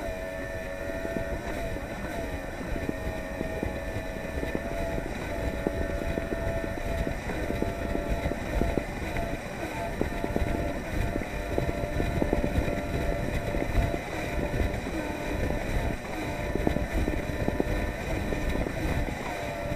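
Polaris SL 900 personal watercraft's two-stroke engine running at steady high revs under way, with wind noise on the microphone.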